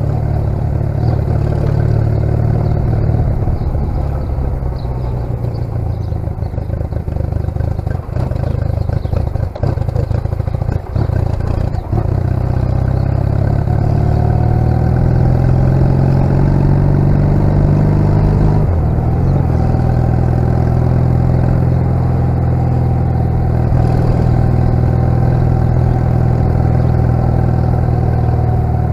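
1996 Honda CMX250C Rebel's 234 cc air-cooled parallel-twin engine running as the motorcycle rides along. The engine note dips briefly a few times around the middle, then runs steadier with its pitch shifting.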